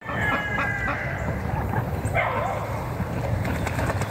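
Pekin ducks calling with a few short quacks, the clearest a little past halfway, over a steady low rumble.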